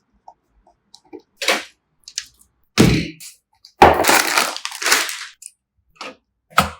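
Computer parts being handled during a PC build: scattered light clicks, a solid knock about three seconds in, then a longer scraping, rustling stretch, and another sharp knock near the end.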